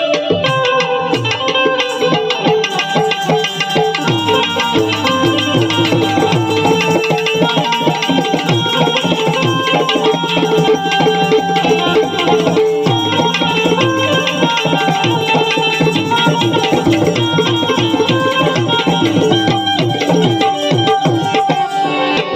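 Instrumental passage of a Gujarati bhajan: tabla playing a steady rhythm under held melodic accompaniment, with no singing.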